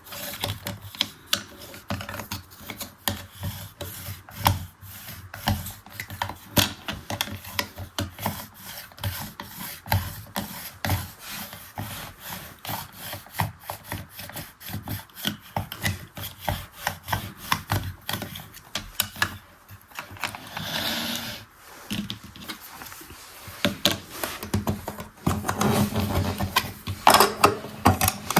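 Rapid, irregular scratchy rubbing and clicking of small plastic parts, several strokes a second, as a miniature manual toy washing machine is worked by hand. The strokes get louder near the end.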